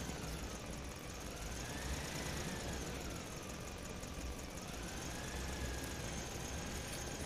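An engine running with a steady low rumble and a faint whine that slowly rises and falls in pitch.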